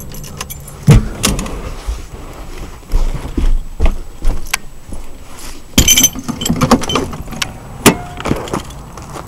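Keys jangling amid a run of knocks and clunks. The loudest knock comes about a second in, and there is a bright jingle around six seconds.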